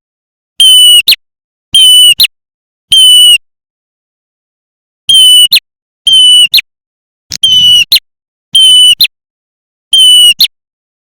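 Lure recording of prenjak merah (red-headed prenjak) calls: about eight harsh, buzzy notes, each about half a second long and followed by a short sharp note, repeating roughly once a second with a pause of nearly two seconds after the third. The recording is played so loud that it distorts.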